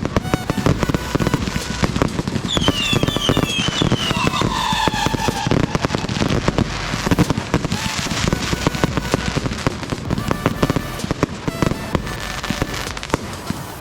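Fireworks display: dense, continuous crackling and popping of many bursts in quick succession, with a few high falling whistles about three to five seconds in.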